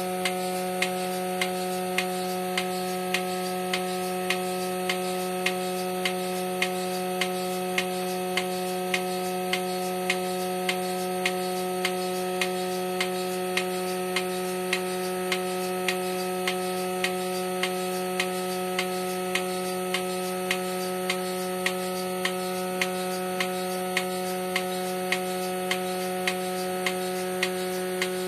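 Bucket milking machine at work: its vacuum pump motor runs with a steady hum while the pulsator on the bucket lid clicks evenly, about three times every two seconds, as the teat cups milk the cow.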